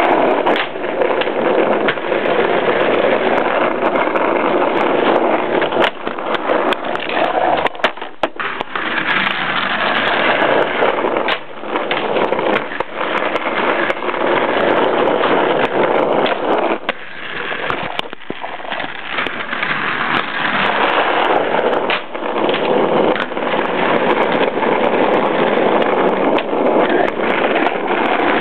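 Inline skate wheels rolling over rough asphalt: a continuous gritty rolling noise with a few brief lulls and scattered clicks and knocks.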